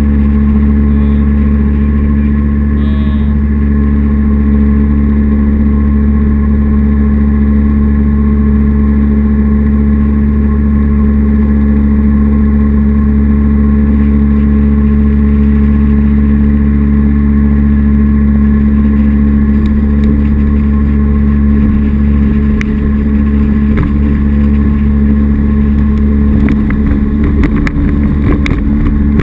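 Jet boat's 240 SportJet drive running at a steady cruising speed, a constant even drone that holds the same pitch throughout. Near the end, water slapping and spraying against the hull adds crackles as the boat meets choppier water.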